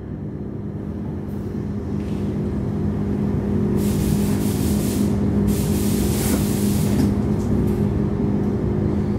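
A paint spray gun hissing in two bursts, about four and six seconds in, over the steady hum of the paint booth's air-handling fans.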